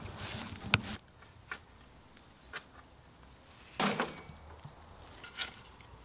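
A wheelbarrow rumbles over grass with one sharp knock and stops abruptly about a second in. A few scattered crunches and rustles follow as a garden fork digs into a pile of wood chip, the loudest about four seconds in.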